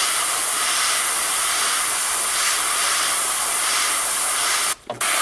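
Airbrush spraying black paint through a stencil: a steady hiss of air and paint, cut off for about half a second near the end as the trigger is let go, then resumed.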